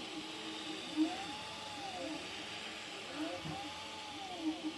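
Prusa MK4 3D printer's stepper motors whining as the print head circles a single-walled cylinder: pitches glide up and back down in arcs about a second long, again and again, over a steady hiss.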